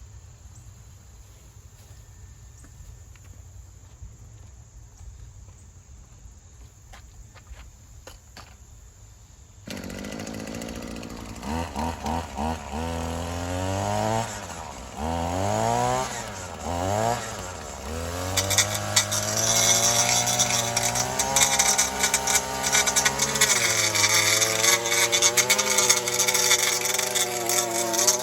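A RedMax edger's small two-stroke engine starts about ten seconds in, revs up and down several times, then holds at high revs and drops back near the end. Before it starts there is only faint background with a few light clicks.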